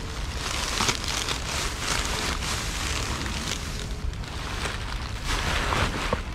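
Thin clear plastic trash bags rustling and crinkling as gloved hands pull and dig through them, in a run of irregular crackles.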